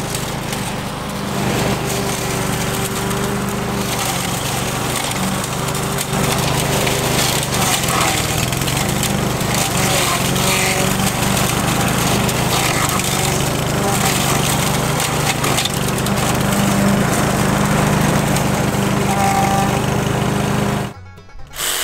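Petrol walk-behind lawn mower engine running steadily while cutting long grass, stopping abruptly near the end.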